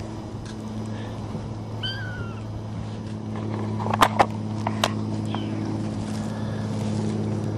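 A young kitten, about four and a half weeks old, mewing: one short, high mew about two seconds in and a fainter one later. A few sharp taps come about four seconds in.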